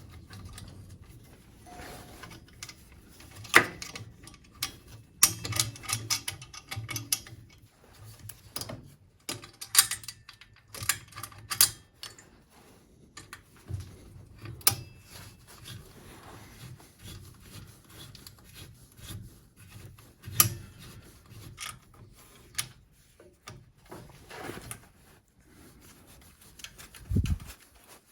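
Irregular clinks, taps and rubbing of stainless steel exhaust pipes, slip-fit joints and spring clamps being handled and fitted together by hand, with a low thud near the end.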